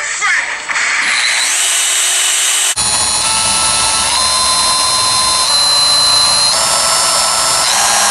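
DeWalt cordless die grinder running at high speed. Its motor whine rises as it spins up, and about three seconds in it jumps to a louder, steady running. The pitch then steps up and down a few times as the variable speed dial is changed.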